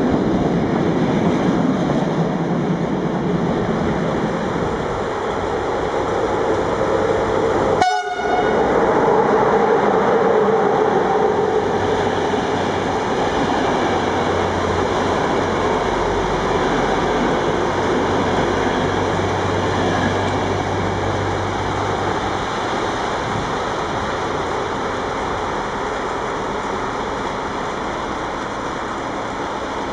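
Freight wagons loaded with shipping containers roll past on the rails with steady wheel noise. About eight seconds in, the sound cuts abruptly to a passenger train's coaches rolling by, which slowly fade as the train moves away.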